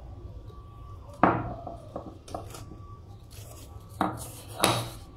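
A few hard knocks as a heavy stone pestle is handled on the stone slab weighting the paneer in a steel colander. The loudest knock is about a second in, and two more come near the end.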